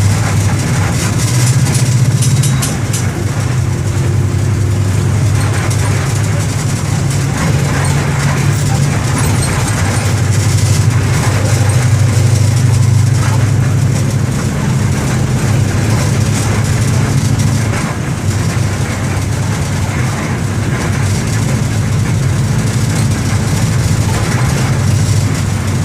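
Mercedes-Benz OM-924 LA four-cylinder inline turbo-diesel engine of an OF-1721 BlueTec 5 bus running, heard from inside the bus: a steady low drone whose level swells and dips slightly.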